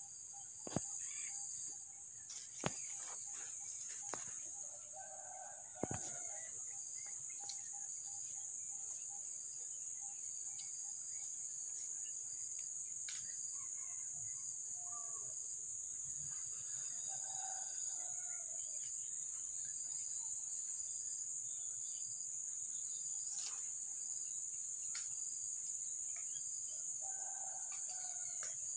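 Steady, high-pitched drone of insects, with three short bird calls spread through it and a few sharp clicks in the first six seconds.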